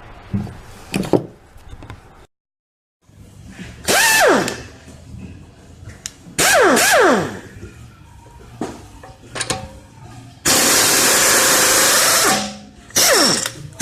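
Ingersoll Rand 212 3/8-inch air impact wrench run free off the tool in four short trigger bursts, each ending in a falling whine as the air motor spins down; the third burst runs steadily for nearly two seconds. It is running again after being cleaned and rebuilt with new O-rings and a new return spring.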